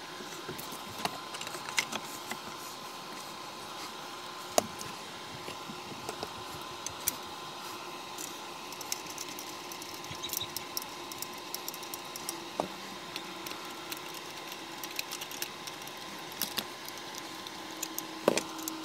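Irregular light clicks and taps of hand work on the small parts of a Remington Model 511 Scoremaster bolt-action .22 rifle, over a steady faint background hum.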